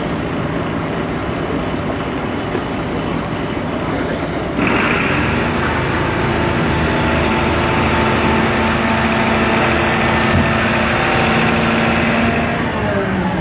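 Fire truck diesel engine running, then stepping up to higher, steady revs about four and a half seconds in, with the revs falling away near the end.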